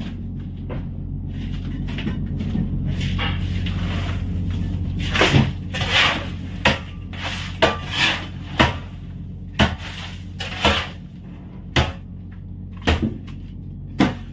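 A shovel scraping into and knocking against crushed ice in a fish-hold compartment, a short sharp stroke roughly once a second through the second half. A steady low hum runs underneath.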